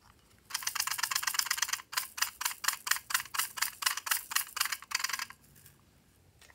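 A small plastic toy container being shaken so that the flakes inside rattle out into a hand: a dense rattle for just over a second, then quick regular clicks about five a second that stop suddenly near the end.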